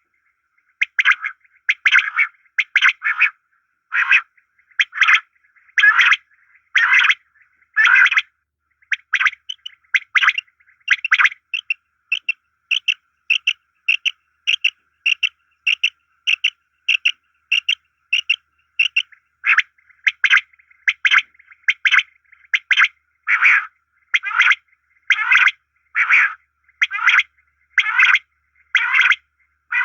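A bird's short calls repeated over and over, about one a second, quickening to about two a second midway, then slowing again.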